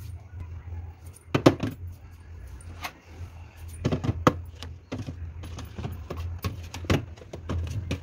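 Plastic food containers being set down and pushed along a refrigerator's glass shelves: scattered clicks and knocks, the sharpest about a second and a half, four and seven seconds in, over a low steady hum.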